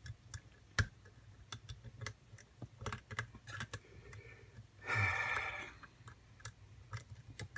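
Irregular small metallic clicks and ticks of a lock pick and tension tool working the pins inside an ABUS padlock. A short voiced hum from the picker about five seconds in.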